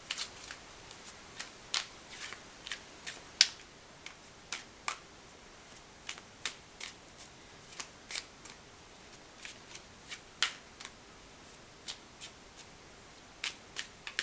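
A deck of tarot cards being shuffled by hand: a string of crisp, irregular card snaps and taps, a few each second.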